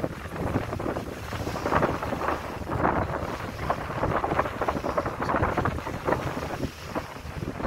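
Wind gusting against the microphone on the open deck of a moving passenger ferry, over the ferry's steady low rumble.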